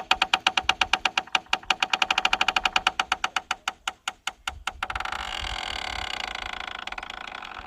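Farm gate's hinge creaking as the gate swings: a fast rattling creak of about ten clicks a second that slows and spreads out about three to four seconds in, then turns into a steady squeal for the last few seconds.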